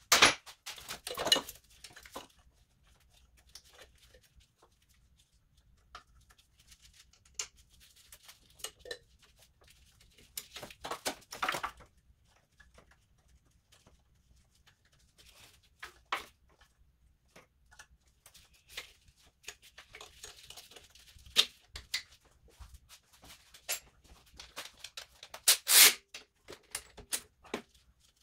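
Scattered clicks, knocks and rustling from hoses, wiring connectors and plastic engine-bay parts being handled and fitted back on during reassembly, with long quiet gaps between. The loudest is a sharp snap near the end.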